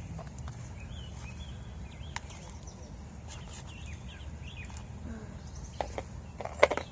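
Small birds chirping now and then over a steady high insect drone and a low outdoor rumble, with a few sharp clicks near the end.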